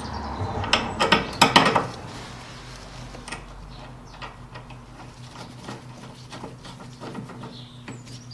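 Metal clinks and rattles of a lawn tractor's track rod end and steering arm being handled and refitted, with a quick cluster of loud clinks about a second in, then scattered light ticks over a faint steady hum.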